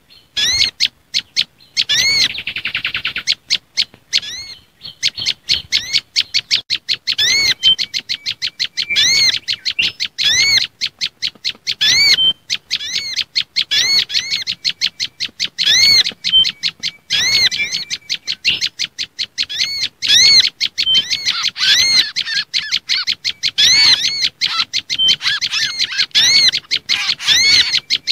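Mixed bird-lure recording of agitated small songbird calls, billed as prenjak lumut combined with mangrove whistler (kancilan bakau) and spiderhunter (sogok ontong): fast high chipping throughout, with a loud arching whistle about every one and a half seconds. It is the kind of excited call track that is played to draw these birds in for catching.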